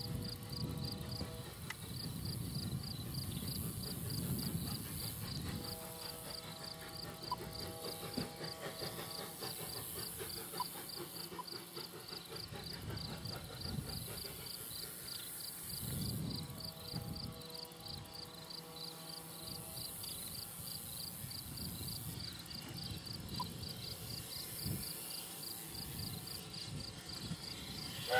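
Insects trilling in a fast, steady pulse over the low rumble of an approaching locomotive, which sounds three long chord-like whistle blasts, the last two a few seconds and about ten seconds apart.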